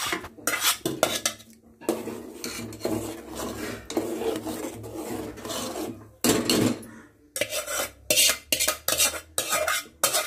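Spoon stirring and scraping a thick tomato and onion puree masala in a cooking pan as it fries. The stroke pattern varies, with a stretch of more continuous stirring in the middle and a regular scraping of about two strokes a second near the end.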